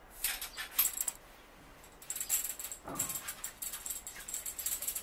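Handling noise from a new boat fishing rod being turned in the hands: rustling and scraping in short, irregular bursts, with a few light clicks near the start.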